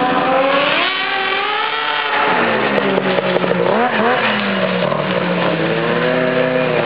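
Two-stroke snowmobile engine with an aftermarket exhaust being revved: it climbs and drops back in the first two seconds, gives two quick blips, holds a steady note, then rises again near the end.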